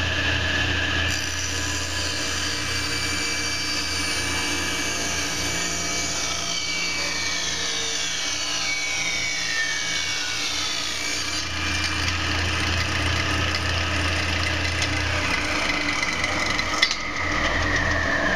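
Table saw with a 10-inch carbide-tipped blade running at speed while a wooden board is ripped along the fence. The blade's rasping cut sits over the motor's whine and hum from about a second in until about two-thirds of the way through. Near the end, around a click, the whine starts to fall in pitch as the blade winds down.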